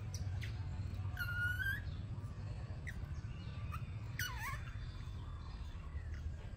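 Baby monkey's high, whistle-like calls: one held call about a second in, then a shorter one sliding down in pitch after four seconds, with a few brief chirps between, over a steady low hum.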